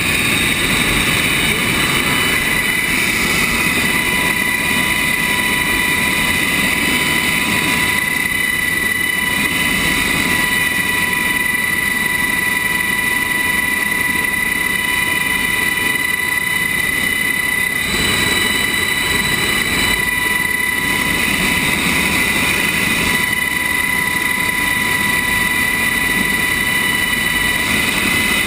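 UH-60 Black Hawk helicopter running on the ground with its rotor turning: a loud, steady turbine whine over a constant rushing noise.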